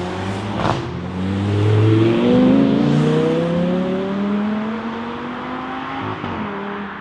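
Mercedes-AMG GT R's twin-turbo V8 accelerating hard, its pitch climbing steadily, with a sharp crack a little under a second in. It is loudest around two to three seconds in, then fades.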